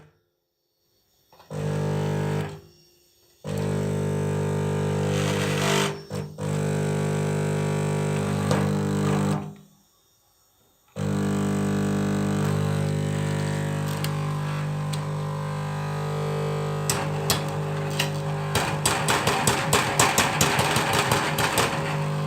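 Magnetic fluorescent-tube choke ballast buzzing loudly with a steady mains hum. The buzz cuts out completely three times and comes straight back each time. From about three quarters of the way in, rapid crackling clicks join it and grow denser: the end-of-life tube, with one electrode cut off, is sending large discharges to its electrodes.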